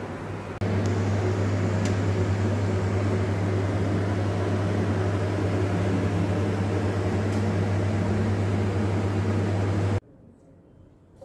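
Steady hum of a running electric motor or fan: a low drone with a rushing noise over it. It steps up in level about half a second in and cuts off suddenly near the end.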